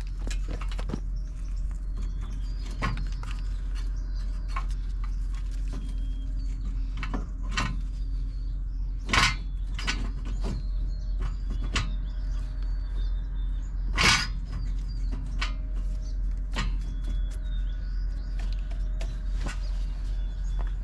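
Scattered metal clicks and clunks of a wheel hub bearing assembly being worked into the steering knuckle, with two sharper knocks about nine and fourteen seconds in, over a steady low hum.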